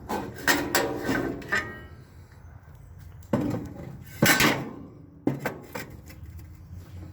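Metal flavorizer bars clanking as they are set into place in a Weber grill: about six separate knocks, a few ringing briefly.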